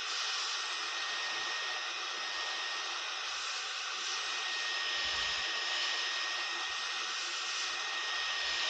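Hot air rework station blowing steadily: an even rush of air with a thin high whine, heating the phone's back panel to soften its adhesive.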